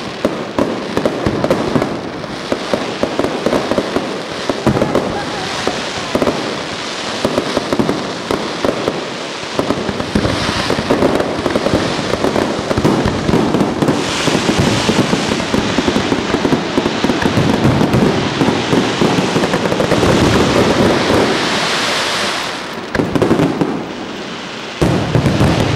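Aerial fireworks display: a dense, continuous barrage of bangs and crackling shells, easing briefly near the end before another burst.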